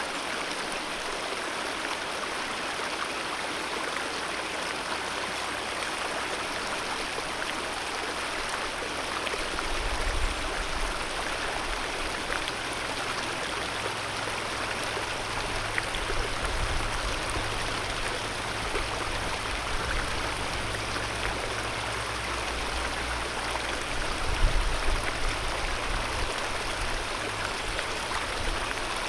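Alpine mountain river flowing with a steady rush of water. From about ten seconds in, a low rumble comes and goes beneath it, with its strongest bumps near ten and twenty-five seconds in.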